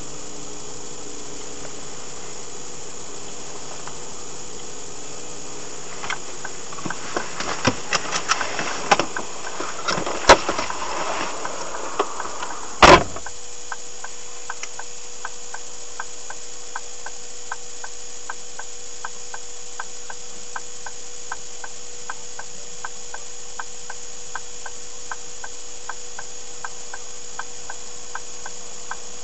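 Inside a stopped car's cabin with the engine idling: a run of knocks and rustles, then a car door shutting with a loud thump about 13 seconds in, followed by the indicator relay ticking steadily at about two ticks a second.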